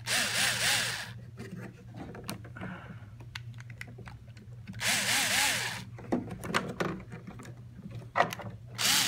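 Small power screwdriver whirring in three short bursts of about a second each, its pitch rising and falling as it turns a pump-nozzle screw, with light handling clicks between the bursts. The screw is spinning without catching because it is not lining up with its nut.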